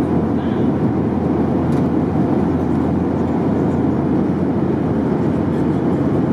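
Steady cabin noise inside a Boeing 737-800 in flight: a constant rush of airflow and engine sound with no distinct events.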